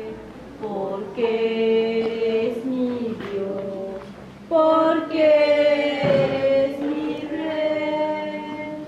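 Voices singing slowly in long held notes, like a church hymn or chant, growing louder about halfway through.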